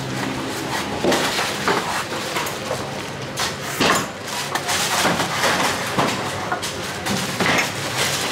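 Knife chopping coconuts: irregular sharp knocks, several of them, over steady background noise.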